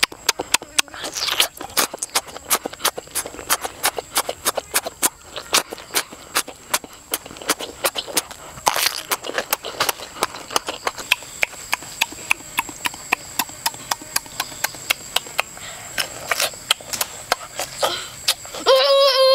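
Close-up wet chewing and lip-smacking of cooked octopus, an irregular run of sharp clicks several times a second. Near the end, a loud wavering high vocal sound breaks in suddenly.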